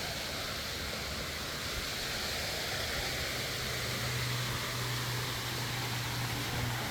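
Steady rushing of running water, with a low steady hum coming in about three seconds in.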